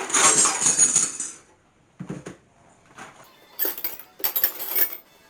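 Loose metal spanners clattering and clinking against each other as they are handled: a long rattle at the start, then a few shorter clatters.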